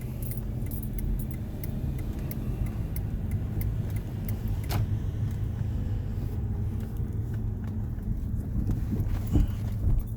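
Car driving, heard from inside the cabin: a steady low road and engine rumble, with light jingling and scattered sharp clicks and rattles.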